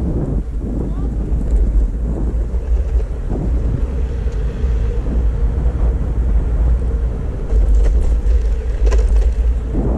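Wind buffeting the microphone with a steady low rumble while riding a Backfire Ranger X2 all-terrain electric skateboard.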